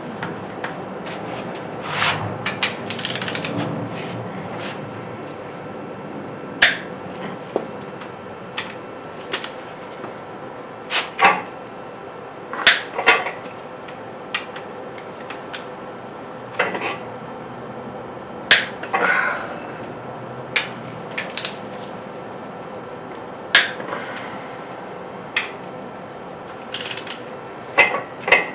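Torque wrench on small-block Chevy 350 cylinder head bolts as they are brought up to 70 ft-lb: irregular sharp metallic clicks, some in pairs, with a couple of longer rattling stretches.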